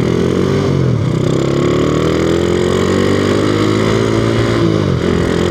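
Honda Revo Absolute's single-cylinder four-stroke engine running through a Tsukigi aftermarket exhaust as the motorcycle rides along. Its note drops about a second in, climbs steadily for a few seconds, then drops and picks up again near the end.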